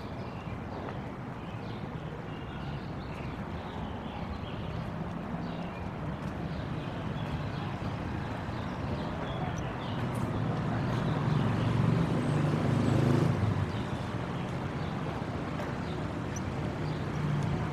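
City street traffic: a motor vehicle's low engine rumble builds and is loudest for a few seconds around twelve seconds in, then drops away quickly as it passes. Faint high chirps are scattered through it.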